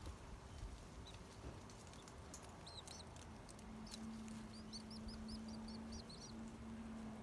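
Nestling birds peeping faintly in the nest, a few scattered high peeps and then a quick run of about eight or nine in a row in the second half. A faint steady low hum comes in about halfway through.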